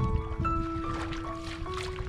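Background music of slow, held notes that step from one pitch to the next.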